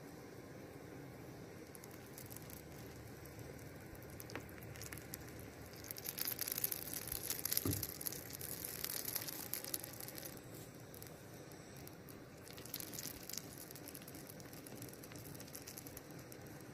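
Hot melted pine sap crackling and sizzling as it is poured from a small pan into the canoe's bottom seam to plug a leak. It is faint, loudest from about six to ten seconds in, with a shorter burst of crackle a few seconds later.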